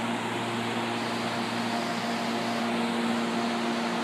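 CPTM electric commuter train standing at the platform. Its air-conditioning and auxiliary equipment give a steady hum and whir with a few held tones.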